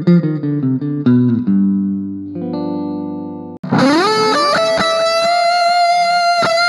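Electric guitar played through an Orange Crush amplifier: a quick run of single notes and ringing chords in a fairly clean tone. About three and a half seconds in, it cuts to an overdriven tone with a long held lead note, bent up as it starts.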